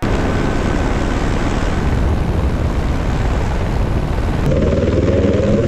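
Helicopter rotor and engine noise mixed with rushing air, heard from a camera hanging on the long line beneath the helicopter. About four and a half seconds in, the hiss drops off and a lower, steadier sound takes over.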